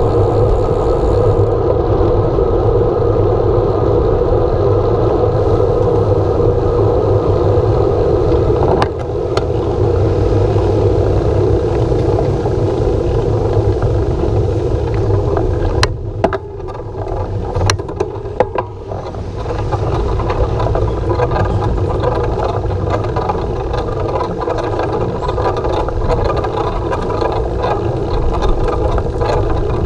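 Steady wind and tyre-on-road noise on a handlebar-mounted camera's microphone while a bicycle is ridden along a paved street. The noise eases for a few seconds about halfway through, with a few sharp clicks.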